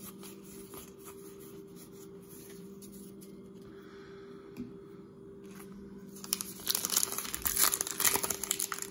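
Foil wrapper of a Topps Gypsy Queen baseball card pack crinkling and tearing as it is ripped open, starting about six seconds in. Before that there is only quiet room tone with a faint steady hum.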